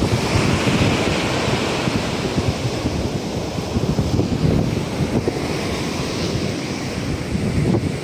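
Surf washing on the shore, a steady hiss, with wind buffeting the microphone in a low, fluttering rumble.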